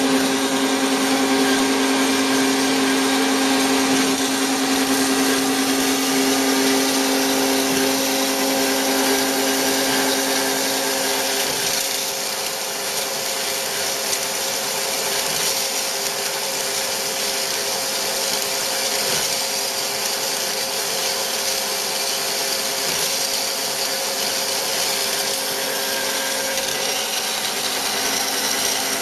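Bigstone CF450 horizontal bandsaw running, its blade sawing through metal stock in a 25-degree mitre cut, a steady machine hum under a hiss. About twelve seconds in the low hum fades and the higher hiss of the cut grows stronger.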